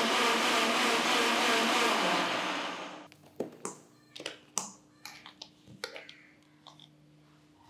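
Mixer grinder grinding wet green masala to a fine paste, switched off about two seconds in and winding down. Then a string of sharp clicks and knocks as the jar's clamp-on plastic lid is unclipped and lifted off.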